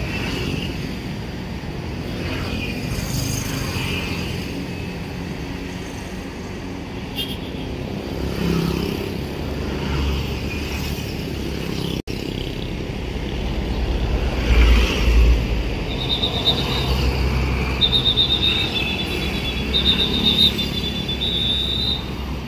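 Street traffic with motorcycles and cars passing and the low rumble of a coach's diesel engine as it pulls out, loudest about two-thirds of the way through. In the second half a high, trilling tone sounds in several short spurts.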